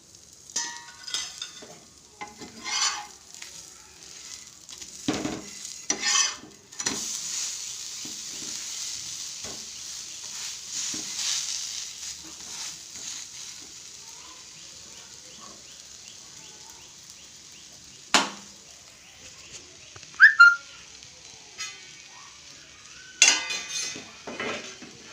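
Cooking pot on a gas stove: a metal spoon clinks and scrapes against it, with a sizzling hiss for several seconds in the middle and a sharp knock and a clatter of metal later on.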